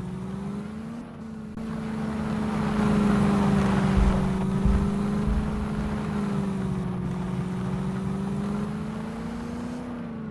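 Mahindra Thar engine running at a fairly steady pitch, rising a little now and then. In the middle comes a louder swell of rough noise with a few low thumps.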